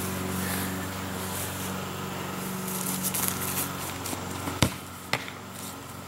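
A soccer ball kicked with one sharp thud, then a second, softer knock about half a second later, over a steady low hum.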